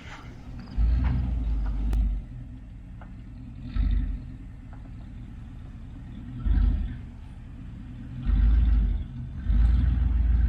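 A vehicle engine running at idle, with five short low surges as it is throttled to move the camper into place.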